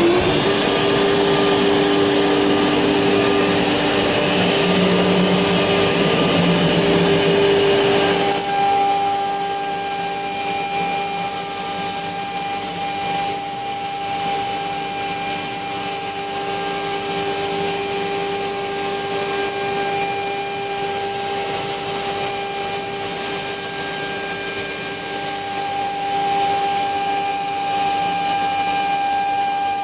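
COMAGRAV NOTUS 1600 CNC router's spindle routing 10 mm plywood, a steady whine over the rush of the dust collector's suction. About eight seconds in the sound changes to a slightly quieter run with a clearer single whining tone.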